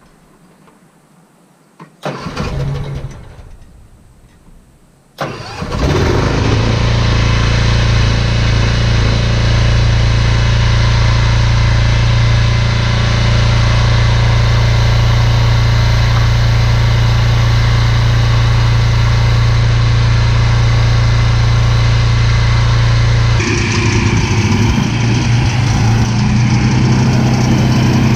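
20 horsepower Kohler engine on a pull-behind brush mower being started: a short first attempt about two seconds in dies away, then about five seconds in it catches and runs steadily. Its sound changes about 23 seconds in.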